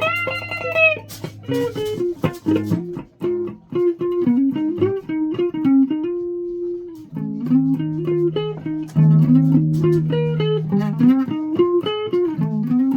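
Electric guitar playing a run of single plucked notes over bass notes, with one note held for about a second midway.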